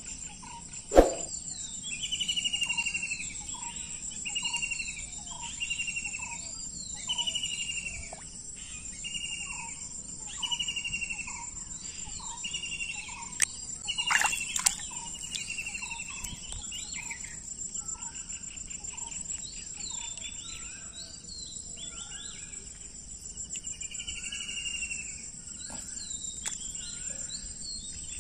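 Steady high buzz of insects, with a bird calling over and over about every second and a half. A single sharp knock about a second in is the loudest sound.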